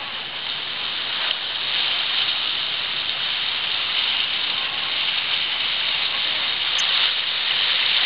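Water rushing along the hull of a Farr 44 racing yacht under spinnaker: a steady hiss that grows a little louder.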